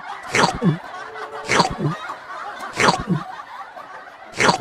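A comic snickering laugh sound effect, repeated four times at an even pace.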